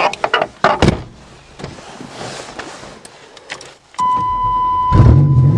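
A few sharp clicks and knocks, then about four seconds in a steady electronic warning tone sounds inside the car. A second later a fuel-injected car engine starts at once and runs loudly.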